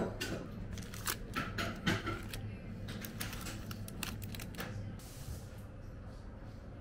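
Clear plastic sleeves and cards being handled, a quick run of crinkles and clicks for about five seconds, over a steady low hum.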